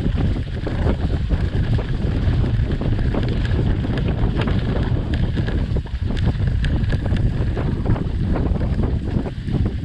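Wind buffeting the GoPro's microphone during an off-road bike ride, a constant low rumble, with scattered clicks and rattles from the bike over rough ground.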